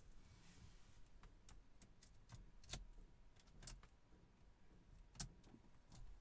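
Faint room hiss with a handful of sharp, light clicks at irregular intervals; the loudest comes about five seconds in.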